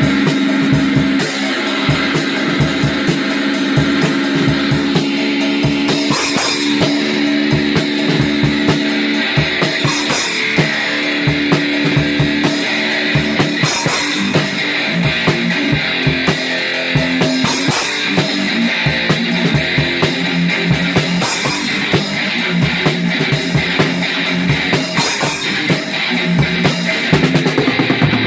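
Rock music with guitar and a drum kit playing a steady beat.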